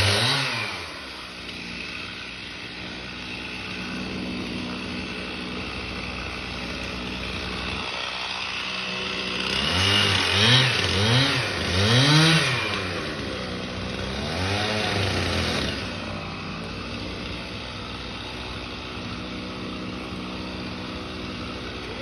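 Chainsaw revved in a few quick throttle blips, pitch rising and falling, once at the start and several times about ten to fifteen seconds in. A steady engine idle runs underneath.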